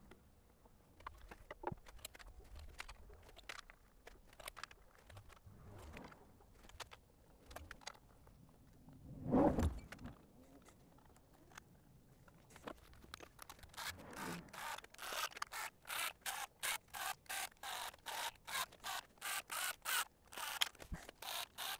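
Oil pan being fitted to a VW 1.9 L ALH TDI engine: light clicks and knocks of metal parts being handled, one louder knock about nine seconds in, then from about thirteen seconds a run of short, evenly spaced bursts, two or three a second, as the pan bolts are run in with a cordless drill-driver.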